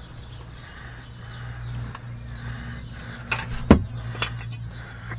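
A few sharp clicks and one louder knock from hand tools being worked on the oil filter under the car, over a steady low hum.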